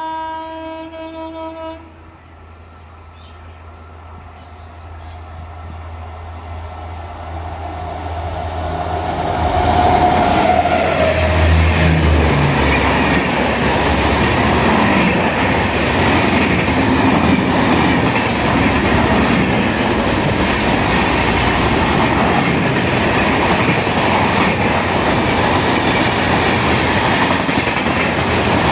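A train's horn blasts briefly, then the train draws nearer, its noise building over about eight seconds. It stays loud as it runs past close by.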